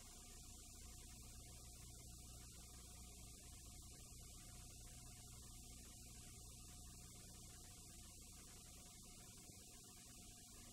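Faint, steady electrical hum under a constant hiss: noise from a blank stretch of home-video tape, with no recorded sound on it.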